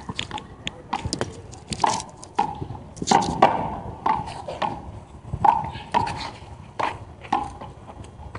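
Handball rally: the small rubber ball slapped by hand and bouncing off the concrete walls and floor of the court. It comes as about a dozen sharp, irregular slaps, each with a short ringing echo off the concrete. The loudest come a little after three seconds in and again about five and a half seconds in.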